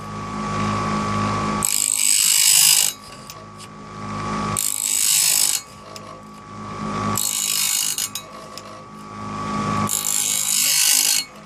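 Home-made bandsaw blade sharpener running, its motor humming steadily while the grinding wheel touches a tooth four times, each a hissing grind of about a second, one tooth roughly every three seconds.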